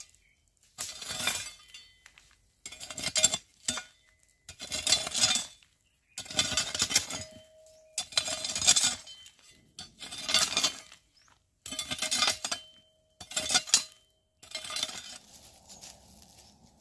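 Metal blade of a long-handled digging hoe striking and scraping hard, stony soil in repeated strokes, about eight of them, one every second and a half to two seconds, each with a faint metallic clink. Near the end the strokes give way to a softer, steadier sound.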